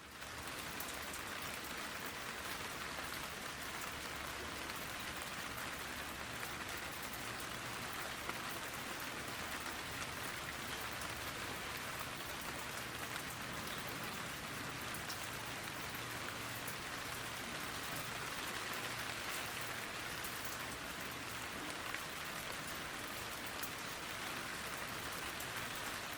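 Steady rain: an even hiss of fine patter that keeps the same level throughout.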